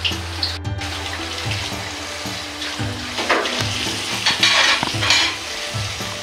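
Background music with a regular stepping bass line, joined about three seconds in by a couple of seconds of loud rushing hiss.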